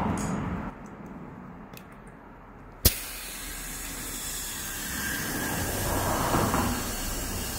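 Compressed air hissing steadily into a tyre through its valve stem with the valve core removed, starting with a sharp click about three seconds in; the tyre is being inflated to seat a stubborn bead against a rubber bead-seating ring.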